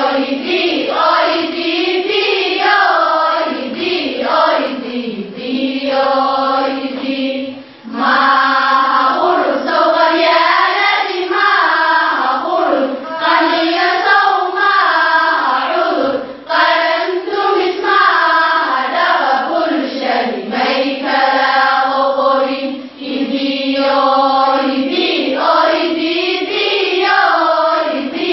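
A group of girls singing a chant-like tune together in unison. It runs in long phrases, broken by three brief pauses for breath.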